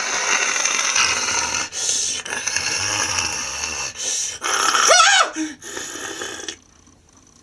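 A monster's growling done with a voice: rasping, breathy snarls in uneven stretches, with a rising-and-falling roar about five seconds in, for a devil puppet turning into a dragon.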